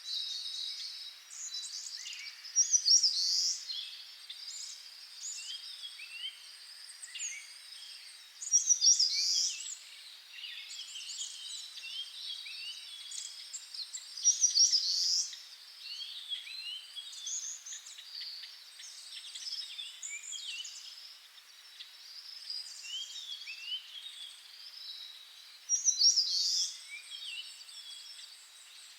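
Birds chirping and calling in a dense chorus of short chirps and trills, with four louder call bouts standing out.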